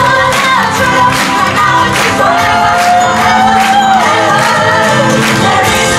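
A women's chorus sings with a band in a live stage musical, over a steady drum beat. About two seconds in, one voice holds a long note for more than a second.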